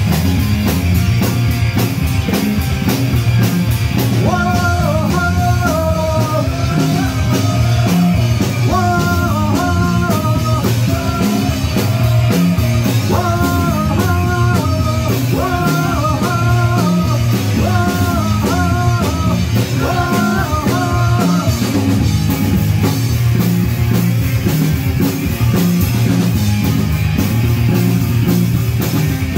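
Live punk rock band playing loud, with guitars and a drum kit. A stepping melody line rides over the top from a few seconds in until about two-thirds of the way through.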